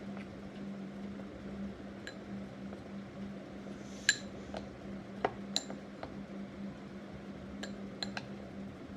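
A metal spoon clinking against a bowl now and then while stirring flour and water, as a scatter of short ringing clinks, the loudest about four seconds in. A steady low hum runs underneath.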